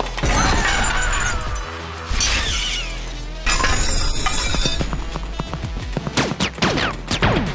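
Music over crashing, shattering hits as a Lego brick fortress is knocked apart, with three sudden loud crashes: one at the start, one about two seconds in and one about three and a half seconds in. Falling, gliding sounds follow near the end.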